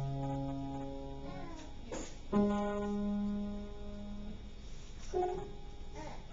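Upright piano played slowly, one note at a time: a low note rings out and fades, another is struck a little over two seconds in and left to ring, and lighter notes follow near the end.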